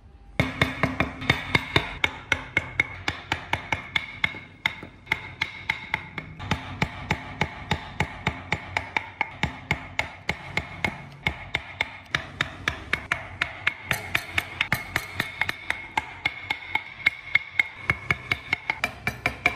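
Wood-carving chisel struck in quick, even taps, about four or five a second, cutting tread notches into a wooden wheel.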